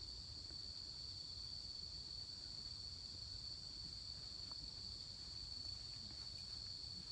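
Night insects chirping in a steady, continuous high-pitched chorus, with a faint low rumble beneath.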